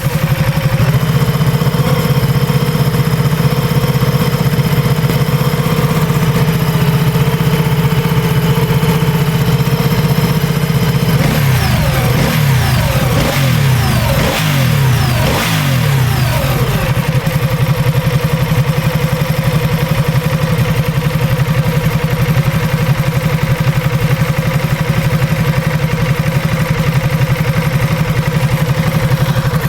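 Ducati Multistrada 1200 S's twin-cylinder engine idling, blipped through several quick revs from about eleven to seventeen seconds in, then settling back to idle. The owner is recording it for a metallic noise it makes.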